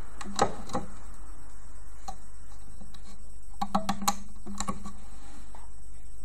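Sharp plastic clicks and taps from rubber loom bands being stretched and snapped onto the pegs of a plastic band loom: a couple about half a second in, then a quick cluster a little past halfway. A steady low hum runs underneath.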